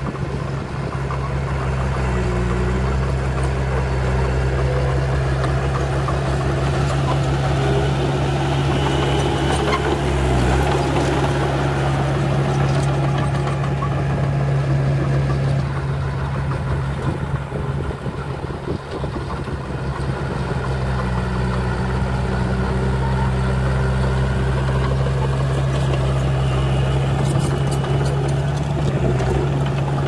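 Small crawler bulldozer's diesel engine running with a steady low drone as the dozer pushes soil with its blade, easing briefly about halfway through.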